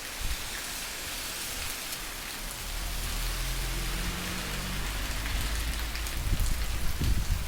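Heavy rain falling steadily, a dense hiss of drops on the ground. A low rumble comes in about two and a half seconds in and grows louder toward the end.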